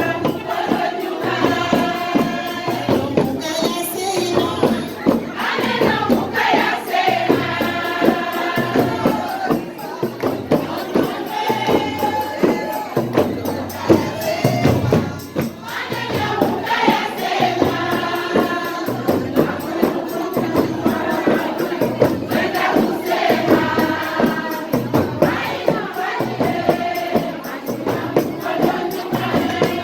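A group of voices singing together over hand percussion, with crowd noise underneath.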